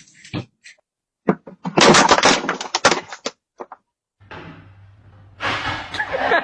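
A sharp knock, then a loud crash with clattering impacts lasting about a second and a half, like something breaking.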